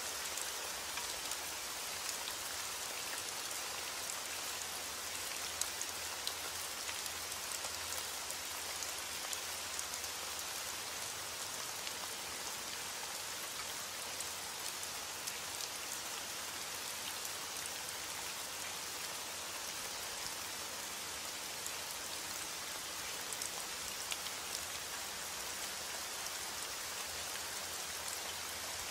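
Steady rain, an even hiss dotted with the small ticks of individual drops hitting a surface.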